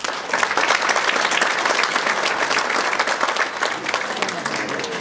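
Audience applauding in a theatre hall, a dense steady clapping that thins out near the end.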